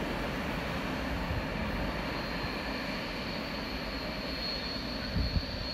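Steady rumble of a freight train's wagons running away down the line, with a thin high whine that grows a little in the second half and a couple of low thumps near the end.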